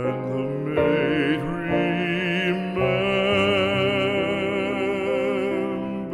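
Background music: a classical art song, a voice holding long notes with a wide vibrato over an accompaniment.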